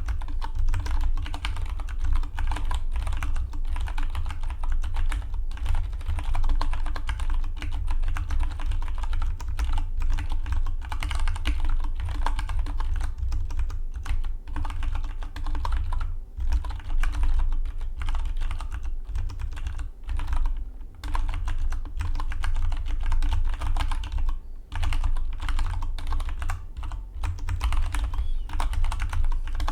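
Dygma Defy split mechanical keyboard being typed on fast and continuously, a dense run of key clicks with a few short pauses between bursts.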